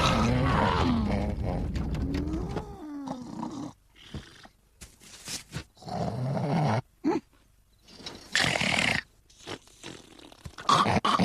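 A cartoon man snoring loudly and heavily. The first snore is long with a rising and falling pitch, and shorter snores follow every second or two with quiet gaps between them.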